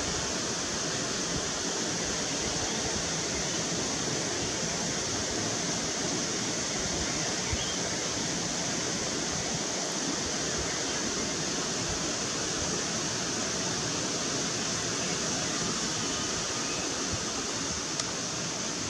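Steady outdoor background hiss with no distinct events, brightest in a high band, over a light fluttering low rumble.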